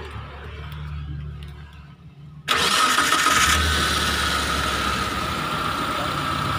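Mitsubishi T120SS fuel-injected engine being started: a low hum at first, then it catches suddenly about two and a half seconds in and keeps running steadily.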